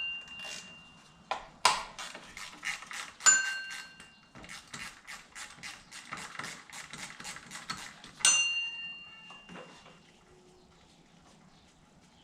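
Socket ratchet clicking as the 10mm bolt holding the belt tensioner is loosened, with a quick run of clicks in the middle. Two ringing metallic clinks of the tool against metal.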